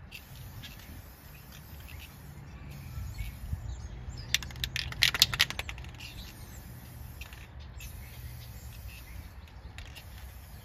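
Aerosol spray can spraying in hissing stretches, broken about halfway through by a quick run of rattling clicks from the can's mixing ball as it is shaken.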